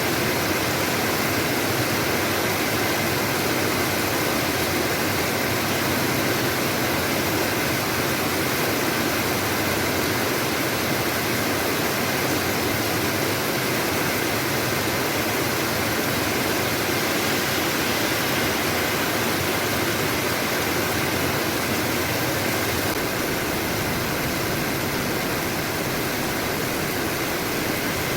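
Heavy rain falling, a steady rushing hiss that holds at one level throughout.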